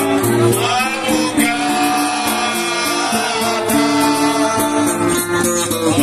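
A group of men and a woman singing a slow serenade together through a microphone, with instrumental accompaniment, holding long sustained notes.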